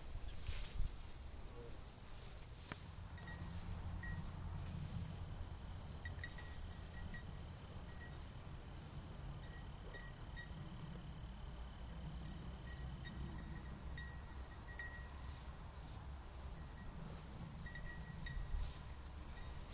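Steady high-pitched chirring of a cricket chorus in the field grass, with a low rumble underneath and a few faint tinkles now and then.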